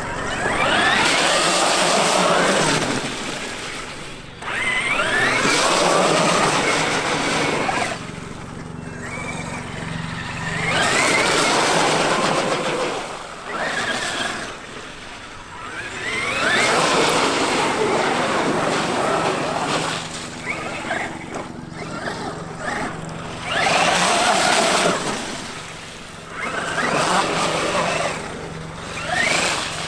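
Traxxas X-Maxx electric RC monster truck driven in repeated bursts of throttle: about six runs, each a loud rushing noise with the brushless motor's whine rising as it accelerates, with quieter gaps between.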